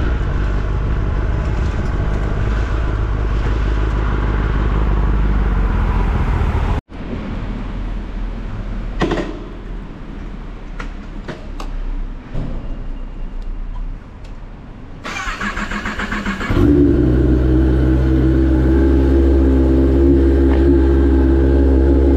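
Kawasaki ZX-10R's inline-four engine through an Austin Racing exhaust, running steadily under way. About seven seconds in the sound cuts abruptly to a quieter stretch with a few clicks, and near the end the exhaust comes back loud and steady.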